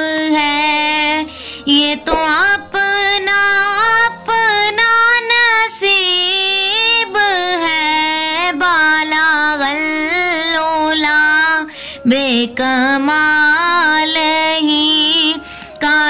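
A naat, a devotional Islamic song, sung by a single high voice in an ornamented, wavering melody, with short breaths between phrases about two seconds in and about twelve seconds in.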